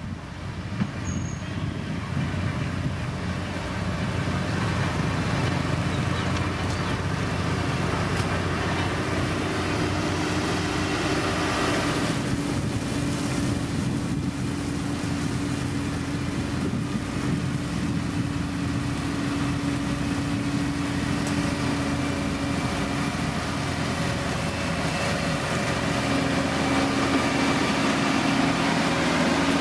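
Diesel engine of heavy road-construction machinery running steadily under work, with a continuous low drone and some noisy rattle.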